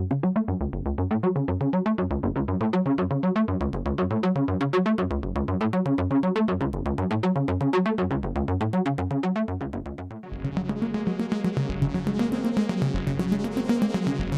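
Analog synthesizer arpeggio: a fast, evenly pulsing run of repeating notes that cycles through a pattern. About ten seconds in it gives way to a brighter arpeggiated synth patch.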